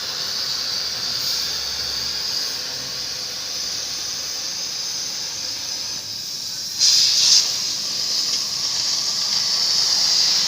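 Gas flame of a CNC oxy-fuel cutting torch hissing steadily while the flame is being adjusted. About seven seconds in, the hiss surges louder for about half a second, then settles back to a steady hiss.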